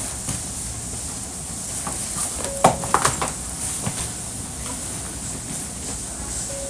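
Hankyu 1300 series electric train running, heard inside the passenger car: a steady rumble and hiss, with a short cluster of sharp clicks and knocks from the wheels over the track about two and a half seconds in.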